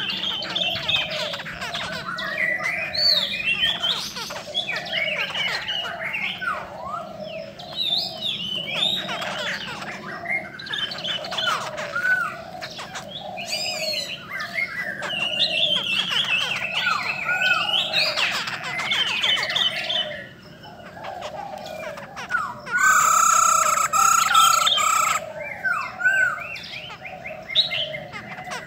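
Caged laughingthrushes (khướu) singing and calling over one another in a dense run of whistles and chattering notes. A louder call held on one pitch lasts about two seconds near the end.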